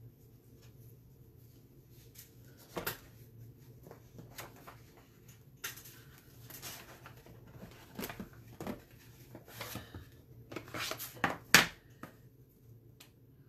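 Craft supplies being handled on a tabletop: scattered light knocks, clicks and rustles, growing busier near the end with the loudest knock shortly before the end.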